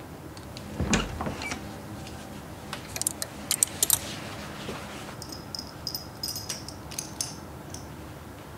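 Metal belt buckle clinking and jingling as a belt is fastened, with a dull thump about a second in and a few sharp clicks before the jingling.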